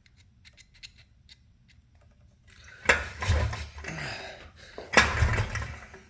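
Recoil starter pulled twice, about three and five seconds in, each pull briefly cranking the Polaris Trail Blazer's two-stroke engine over without it firing, as for a compression test. Faint clicks come before the pulls.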